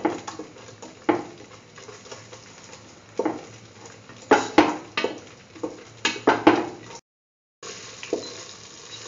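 A spatula scraping and stirring thick ground chickpea-coconut paste in a pan, in irregular strokes against the pan, the loudest a few seconds past the middle. The sound cuts out abruptly for about half a second near the end.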